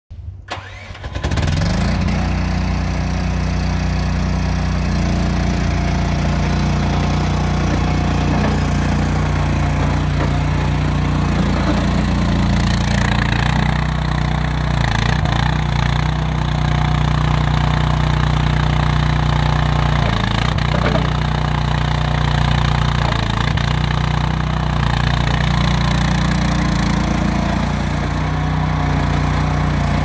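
Small engine of a YSRT14 mini stand-on tracked skid steer starting about a second in, then running steadily as the loader is driven, its note shifting a little now and then.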